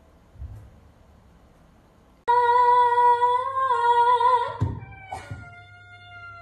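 A woman sings one long held note, then a tabby cat answers with a long meow that slides down in pitch. A short thump is heard about half a second in, before the singing.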